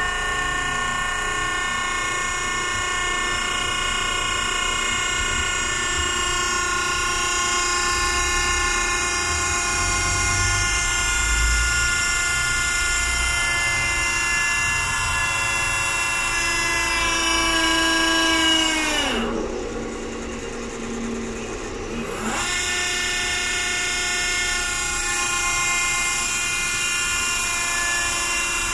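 Electric-motor-driven hydraulic gear pump of a jacking lubrication power unit running under test with a steady whine. About 18 seconds in the whine drops steeply in pitch and almost fades for a few seconds, then climbs back up to its steady running pitch.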